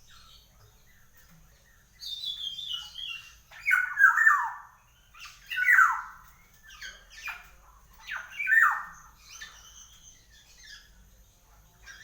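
Black-naped oriole calling: a quick run of short notes stepping down in pitch, then three loud, harsh, downward-sweeping squawks about two seconds apart, with quieter calls between.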